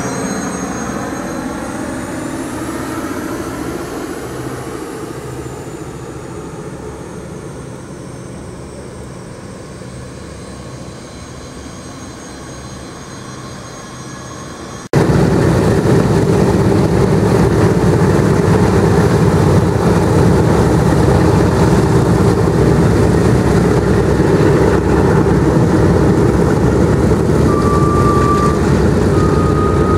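A B-24 Liberator's four Pratt & Whitney R-1830 radial engines drone overhead, the pitch falling as it passes and the sound fading as it flies away. About halfway through it cuts abruptly to the much louder, steady run of a four-engine WWII bomber's radial engines on the ground.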